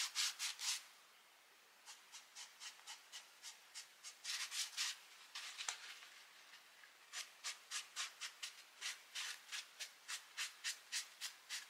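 Foam sponge brush scrubbing a wet coffee grunge mixture onto a painted fabric candy corn. The quick, faint rubbing strokes come about three a second, with a short pause about a second in.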